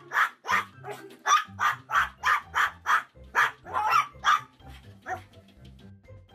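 Small dog barking rapidly and over and over, about three barks a second, stopping about five seconds in.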